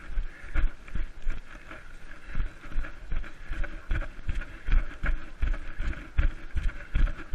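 A runner's footfalls on grass, about three strides a second, each stride thumping through the body-worn GoPro camera, with rustling and panting-like noise between the steps.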